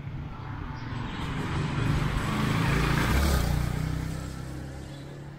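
A motor tricycle (motorcycle with sidecar) passes close by with its engine running. It grows louder to a peak about halfway through, then fades as it moves off.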